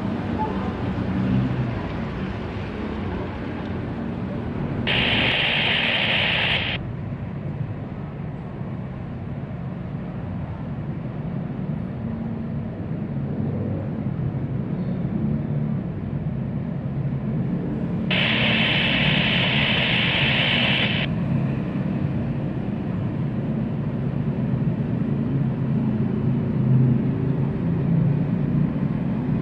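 Steady rumble of jet aircraft engines, broken twice by a couple of seconds of hiss that starts and stops abruptly, like an airband radio's squelch opening without speech.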